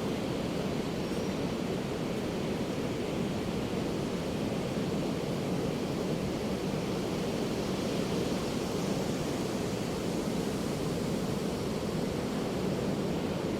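Ocean surf: a steady, even wash of waves with no separate crashes standing out.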